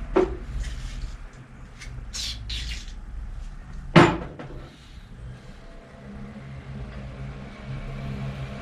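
Bicycle repair handling sounds at a workbench: two sharp clicks or snaps, one just after the start and a louder one about four seconds in, with a few short scrapes between them. A steady low hum sets in around six seconds in.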